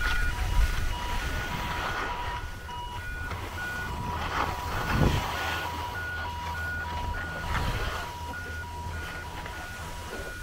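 Skis scraping over packed snow, with wind rumbling on a handheld camera's microphone. Short high beeping tones at a few fixed pitches switch on and off irregularly over it, and a louder swoosh comes about five seconds in.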